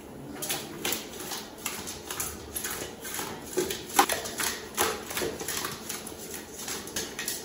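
Raw pomfret steaks tossed in a stainless-steel pot to coat them in turmeric and salt: wet slaps and knocks of the fish pieces against the metal, about three a second, the loudest about four seconds in.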